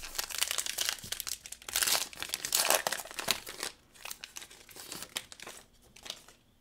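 The wrapper of a Topps Gypsy Queen baseball card pack crinkling and tearing as the pack is ripped open and the cards are pulled out. The crackle is dense and loudest for the first three seconds or so, then thins to a lighter rustle that fades out.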